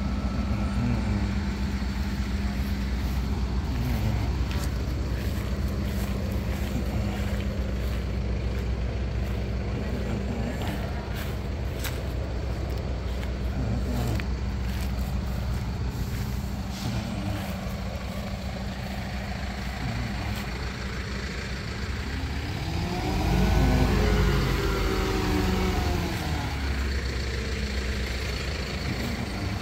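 Diesel engine of a mobile truck crane running steadily, revving up and settling back down about two-thirds of the way through.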